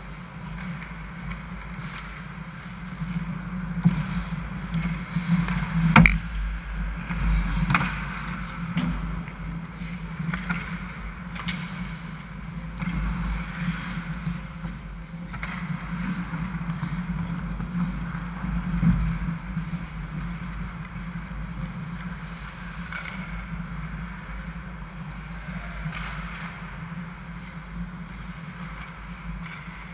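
Ice hockey play heard from behind the goal: skate blades scraping across the ice and sharp knocks of sticks and puck, the loudest crack about six seconds in, over a steady low hum.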